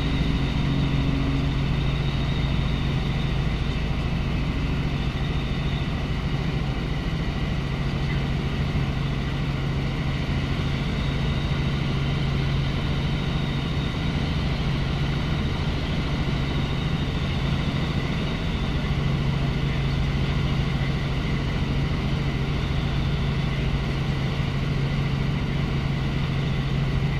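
Helicopter running in flight: a steady, unbroken drone of engine and rotor with a constant low hum and a higher whine.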